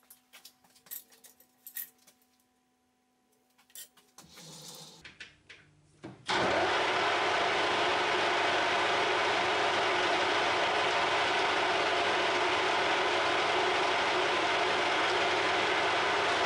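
A few light clicks, then a Harrison M300 metal lathe starts up and, about six seconds in, settles into a loud, steady running noise as the chuck spins the brass stock.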